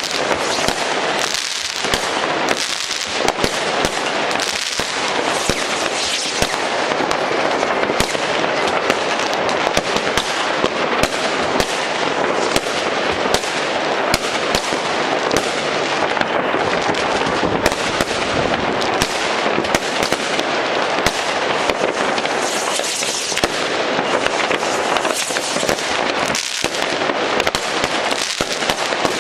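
Many consumer fireworks rockets and firecrackers going off at once all across a city: a dense, unbroken crackle of bangs and pops, many at a time, with no pause.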